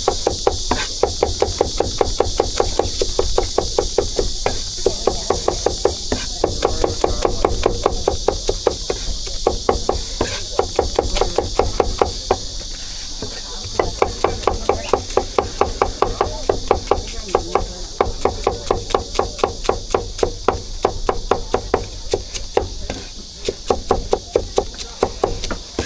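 Meat cleaver chopping rapidly and steadily on a wooden board, mincing the braised pork filling for roujiamo, in long runs of about four strokes a second with a couple of short pauses.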